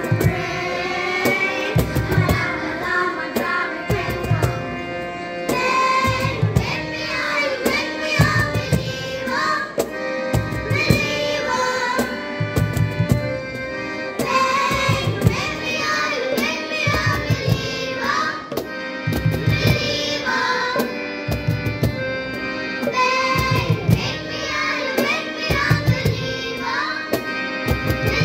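A group of young girls singing a song together into microphones, with a steady low beat under their voices.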